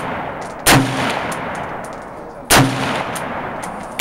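Bushmaster M4 carbine firing single shots: two shots a little under two seconds apart, and a third just at the end. Each shot trails off in a long echo.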